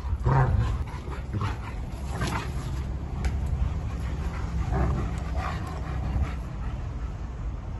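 Two German Shepherd dogs play-fighting, giving short vocal sounds and panting in several bursts, the loudest about half a second in.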